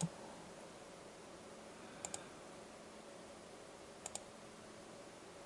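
Faint computer mouse clicks, a double-click about two seconds in and another about four seconds in, over a faint steady hum.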